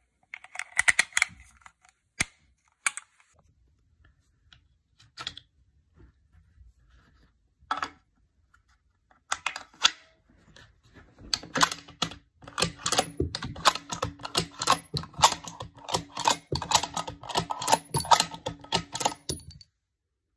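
Inert drill rounds clicking as they are pressed into a 10-round MDT .308 polymer magazine, with a few single clicks after. From about halfway in, the rifle's bolt is cycled over and over, a fast run of metallic clicks and slides as it feeds drill rounds from the magazine, stopping just before the end.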